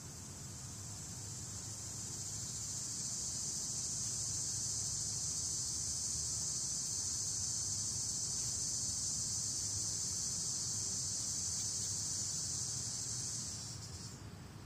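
A steady, high-pitched insect drone, likely a cicada or cricket, that swells over the first few seconds, holds, and fades away near the end. A faint low rumble sits beneath it.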